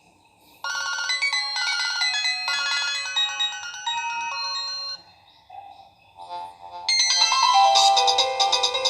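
New Nokia 3310 ringtones: an electronic melody of clear, stacked notes starts about a second in and stops sharply at about five seconds, and after a short gap another ringtone melody begins near seven seconds.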